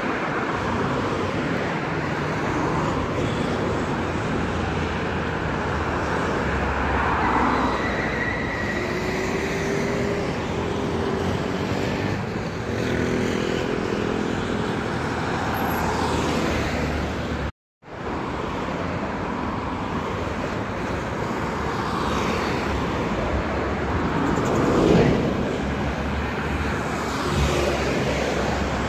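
Multi-lane road traffic: cars, vans and city buses driving past, a steady wash of tyre and engine noise with the hum of heavier engines, and one louder vehicle passing near the end. The sound cuts out for a moment about two-thirds of the way through.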